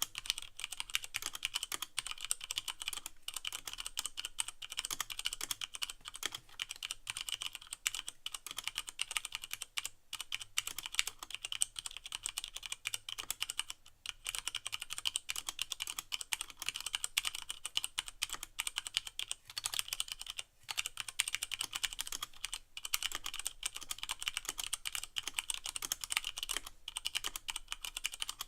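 Fast, continuous typing on a Leopold FC660M mechanical keyboard with Cherry MX Brown switches and no O-rings, keys clacking as they bottom out, with a few brief pauses.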